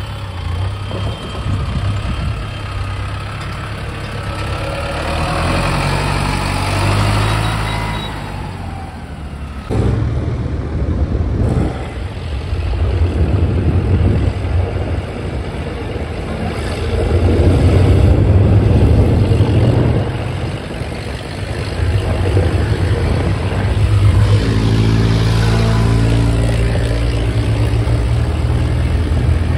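Diesel tractor engines running as the tractors drive along a road, a steady low engine note that swells and dips in level, changing abruptly a few times.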